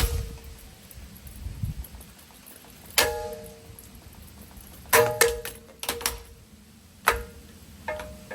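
Hampton Bay Farmington ceiling fan being smashed: separate sharp metal clangs, each ringing briefly. One comes at the start, one about three seconds in, a quick cluster around five to six seconds, and two more near seven and eight seconds.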